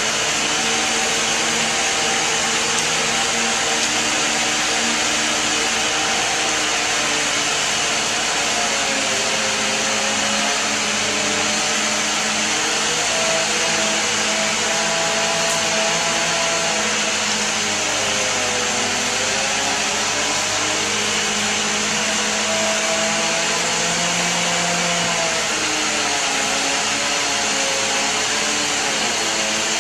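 Chainsaw engine running steadily and loudly, its pitch slowly sagging and recovering several times.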